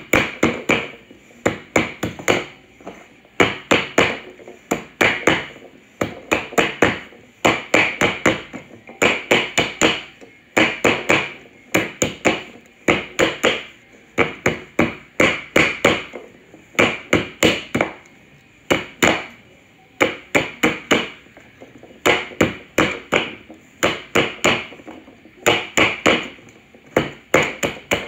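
Rubber mallet striking a Ninebot ES4 scooter's front tire to tap it down over its rim on a 3D-printed jig. The blows come in quick runs of several with short pauses between.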